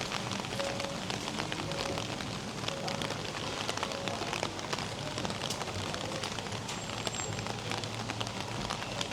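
Steady rain falling, with many sharp drop ticks close by.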